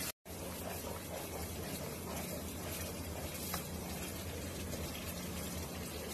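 Wet spice mixture sizzling in hot oil in a non-stick pan as a spatula stirs it: a steady hiss, with a faint low hum beneath.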